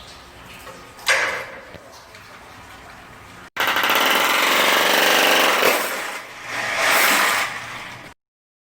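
An electric alarm bell for a septic-tank pump ringing with a rapid, continuous rattle. It rings in two loud spells, the first about two seconds long and the second shorter. A short sharp burst comes about a second in.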